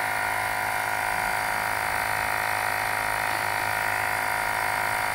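Portable rechargeable tyre inflator's small electric compressor running steadily and quite noisily as it pumps up a car tyre, partway to its preset 32 PSI cut-off.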